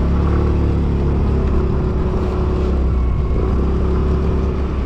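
Small Yamaha scooter's engine running at a low, steady speed while being ridden, a steady drone with slight rises and falls in pitch.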